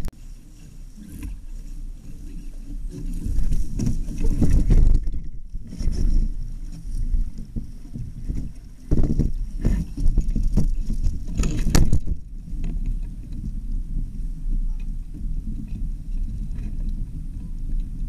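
Wind buffeting the microphone in uneven gusts, with choppy water slapping and splashing against a Laser dinghy's hull.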